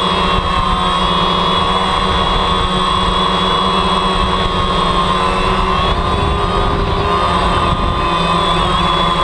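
DJI Phantom quadcopter's motors and propellers whirring steadily in flight, heard close from the camera mounted on it, with the pitch wavering a little as the motors adjust speed.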